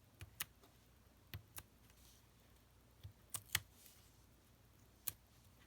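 Quiet work at a craft table: about six light, sharp clicks and taps spread over the few seconds, from hands handling card stock and a craft pick tool while mounting a piece on foam adhesive dimensionals.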